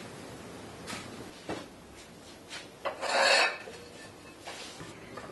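A few light clinks and knocks of steel tile moulds and cement tiles being handled on the work bench, with one gritty scrape about half a second long three seconds in.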